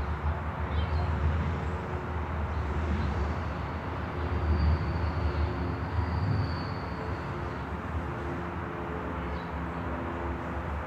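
Street traffic rumble with the hum of idling and passing engines, and a faint high whine from about four to seven seconds in.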